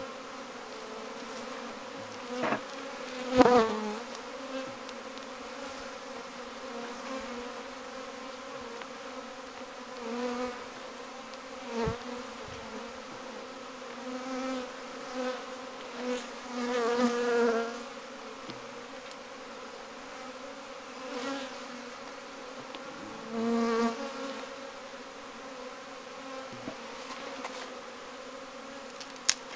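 A swarm of honeybees buzzing around an open hive, a steady hum with louder swells here and there as bees fly close by. A sharp knock about three and a half seconds in is the loudest sound.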